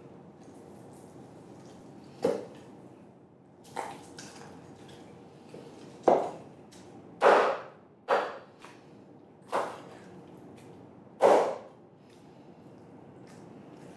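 Kitchen knife chopping through a whole roast chicken and striking a wooden cutting board: about seven sharp knocks, irregularly spaced a second or so apart.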